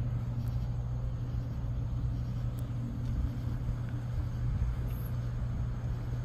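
A steady low mechanical hum, like an engine running at idle, under faint outdoor traffic noise.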